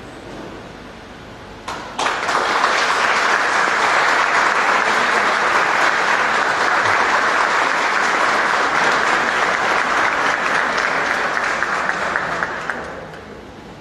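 An audience applauding. The clapping starts suddenly about two seconds in, holds steady, and dies away near the end.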